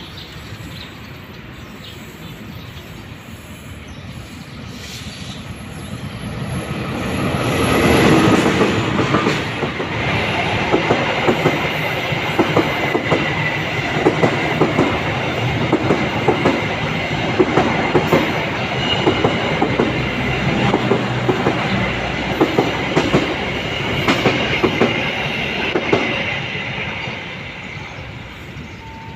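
Diesel-hauled passenger train approaching and passing close by. The locomotive's engine swells to its loudest about eight seconds in. The coaches' wheels then clatter over the rail joints in a quick, even rhythm under a thin, high, steady wheel squeal, and the sound fades away near the end.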